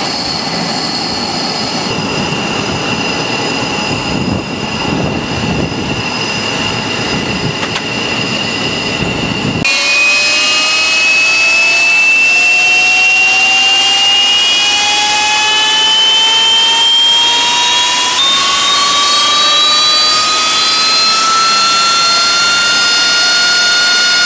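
AV-8B Harrier II's Rolls-Royce Pegasus turbofan spooling up during engine start: a whine that rises steadily in pitch, stepping up once partway through. For about the first ten seconds, before the whine, there is a steady rushing noise with a high steady tone, which stops abruptly.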